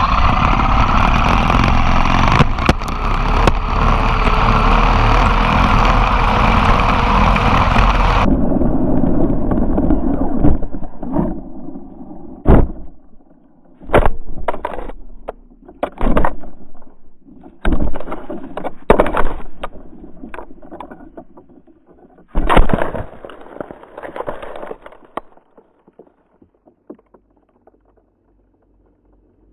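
Traxxas Maxx RC monster truck at speed: a loud steady rush of motor and wind noise that cuts off about eight seconds in. It is followed by a series of separate hard knocks and clatters a second or two apart as the truck tumbles in a crash, dying away near the end.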